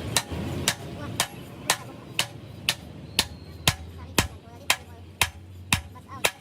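Hammer striking metal in steady, even blows, about two a second, each with a short ring.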